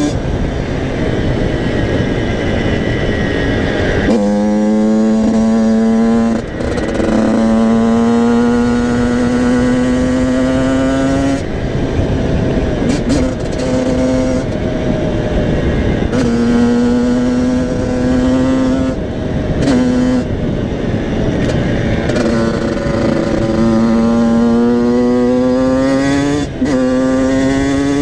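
Yamaha motocross bike's single-cylinder engine under hard acceleration, its pitch climbing through each gear and dropping back at each shift or throttle lift, several times over. Wind rushes over the helmet-mounted microphone throughout.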